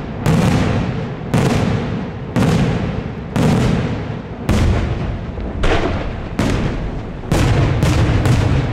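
Daylight aerial fireworks shells bursting overhead: a steady run of loud bangs about once a second, each followed by a fading echo, over a constant low rumble. The bangs come faster near the end.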